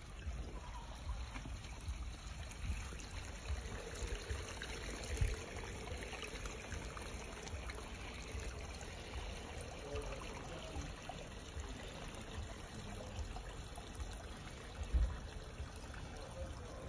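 Water trickling steadily down a small rock-built garden stream and waterfall into a pond, with occasional low bumps, the loudest about five seconds in and near the end.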